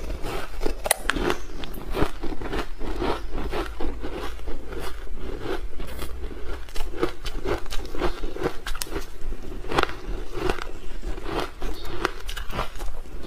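Close-miked crunching and chewing of soft, frosty white ice dusted with matcha powder: many irregular crisp crunches and crackles. Near the end a gloved hand crumbles off another piece of the ice.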